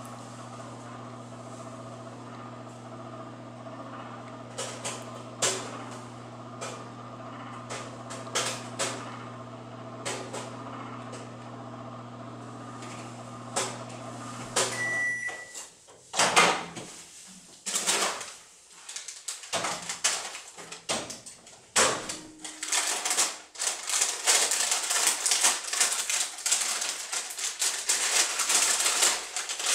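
LG microwave oven running with a steady hum while popcorn kernels pop inside a paper bag, sharp scattered pops. About halfway through the microwave beeps once and the hum stops; then come a few clicks and knocks, and near the end the paper bag rustles and crinkles loudly as it is opened.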